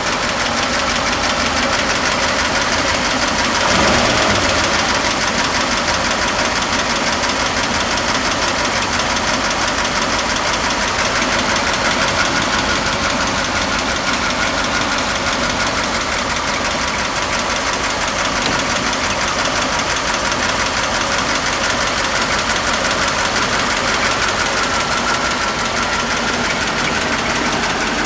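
1948 Ford F5's flathead V8 idling smoothly and steadily, with a brief louder swell about four seconds in.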